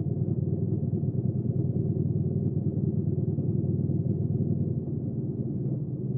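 Hyosung GV300S Aquila 300's V-twin engine running at a steady speed, a low even engine note with no revving.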